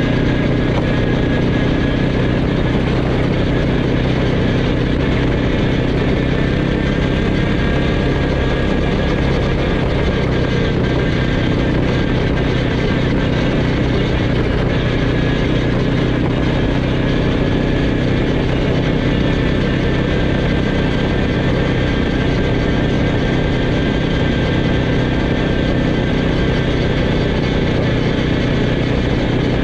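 ATV quad bike engine running steadily at cruising speed on a gravel dirt track, with an even rushing noise over it and no change in speed.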